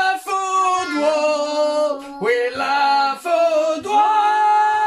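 A man and a woman singing together without accompaniment, holding long drawn-out notes.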